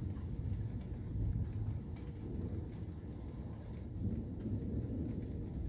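Distant thunder rumbling on without a break from a storm cell with near-constant lightning, with faint scattered ticks of rain.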